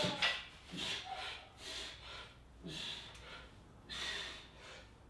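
A man breathing hard through a set of exercise reps: short forceful breaths, roughly one a second.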